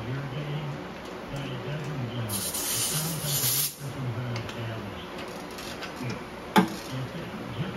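A spray hisses for about a second and a half a couple of seconds in, then one sharp metallic clink near the end, during engine teardown work.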